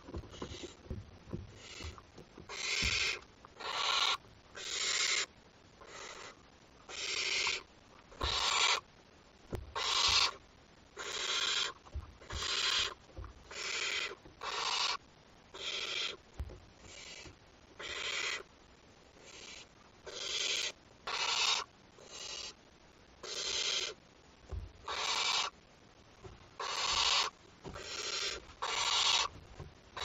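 Barn owl nestlings giving their rasping, hissing begging call (the 'snoring' call), in bursts of about half a second, roughly one a second with a few short pauses. A few soft thumps from the owlets moving on the nest box floor.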